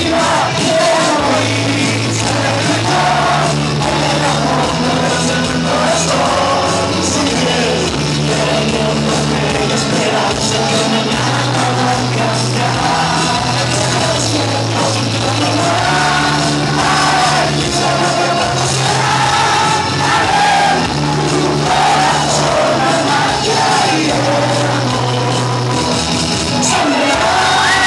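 Live song in a large hall: a singer on a microphone over loud amplified backing music with a bass line that steps from note to note about once a second.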